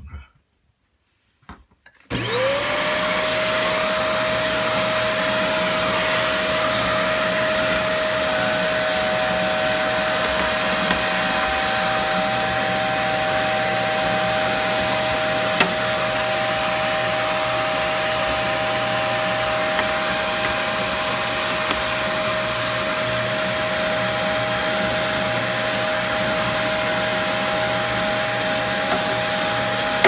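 Vacuum cleaner switched on about two seconds in, spinning up quickly and then running steadily while it sucks dust out of a clogged fridge condenser coil. A second, higher steady tone joins its whine about eight seconds in.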